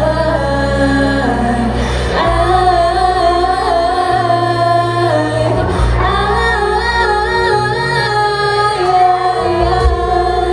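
Live band playing: female vocalists singing over electric guitars and drums.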